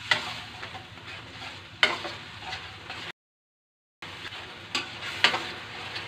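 Metal spatula stirring a thickened sauce in a stainless steel wok while it sizzles, with a few sharp clacks of the spatula against the pan. The sound drops out completely for about a second in the middle.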